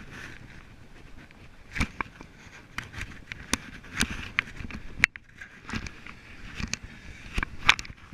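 Irregular scrapes, clicks and knocks, several a second, over a faint steady hiss.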